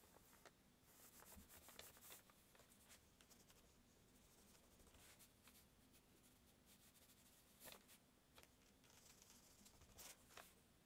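Faint scratchy strokes of a paintbrush laying acrylic paint onto a painting board, with a few light clicks, one as the brush goes into the paint on a plastic palette near the end.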